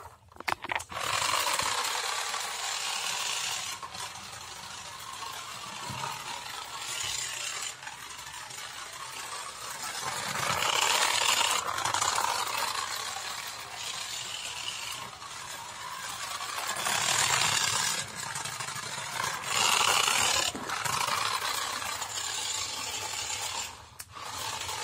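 Small battery-powered toy police car driving over a tiled floor: its little gear motor and plastic wheels rattle and scrape on the tiles. The noise swells louder and fades several times as the car moves nearer and farther.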